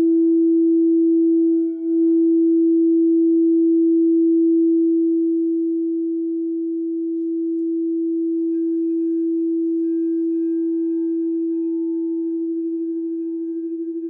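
Crystal singing bowls ringing. One low bowl holds a steady, pure tone throughout. About eight seconds in, a second, higher-pitched bowl joins it, and near the end the low tone wavers in a quick pulse.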